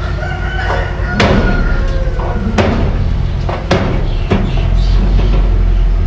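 Mini bulldozer's diesel engine running steadily under load, with four sharp metallic clanks from the machine as it works the dirt. A long high tone that falls slightly is heard over the first two seconds or so.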